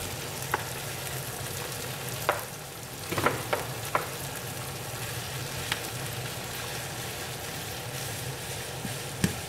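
Ground beef and chopped onion and peppers sizzling steadily in a hot frying pan, with a few short clicks and knocks as a plastic slotted spatula is picked up and pushed through the meat.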